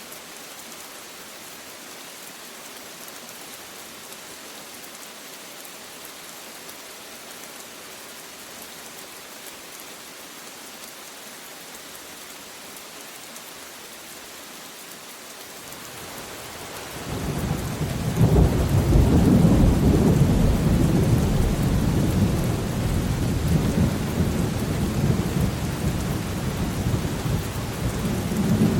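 Steady rain falling. About two-thirds of the way through, a long, low roll of thunder builds up and keeps rumbling, much louder than the rain.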